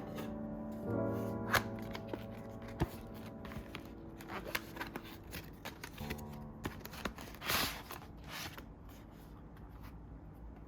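Packaging and small items being handled: scattered clicks and rustles, with a longer rustle about seven and a half seconds in. Soft piano background music underneath.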